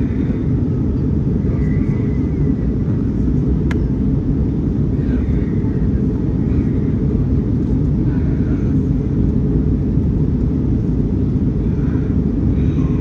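Steady low rumble of an Airbus A319-100 airliner during its arrival, with one sharp click about four seconds in.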